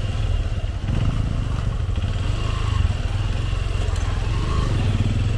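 Motorcycle engine running steadily at low revs while being ridden, a continuous low rumble.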